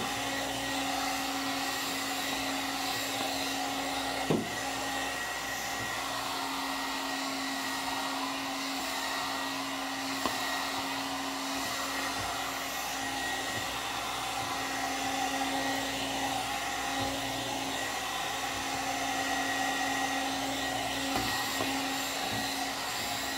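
One-step hot-air brush hair dryer running steadily on its high setting: a constant rush of air with a steady motor hum under it. One brief knock about four seconds in.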